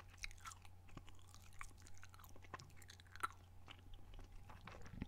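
Chewing gum close to the microphone: soft, irregular wet smacks and clicks of the mouth, over a faint steady low hum.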